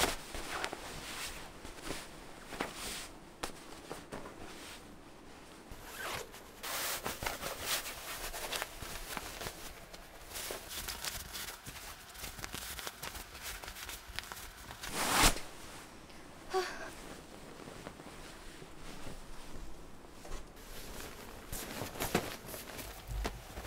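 Repeated short, scratchy rasps and rustles of something being handled, the loudest about fifteen seconds in.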